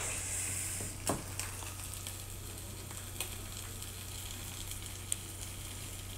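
Eggs and turkey bacon sizzling steadily in a frying pan, with a few short sharp clicks, the loudest right at the start and about a second in.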